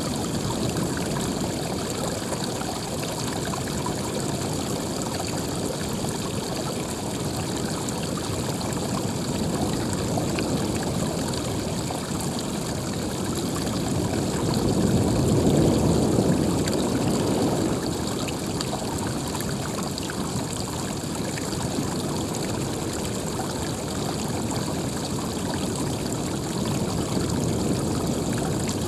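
Running water, a steady stream-like rush, which swells louder for a few seconds about halfway through.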